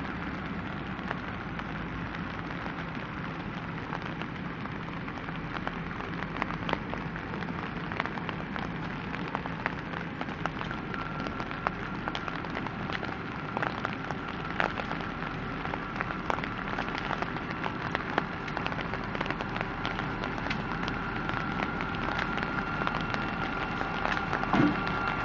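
Steady rain pattering with scattered close drops, over the low running of an approaching CSX GP30R diesel locomotive. From about halfway a high steady whine joins in, and the sound grows louder toward the end as the locomotive draws near.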